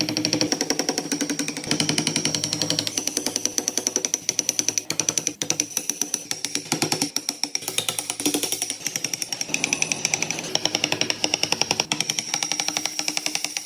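Background music with a fast, steady percussive beat, its tones changing every few seconds.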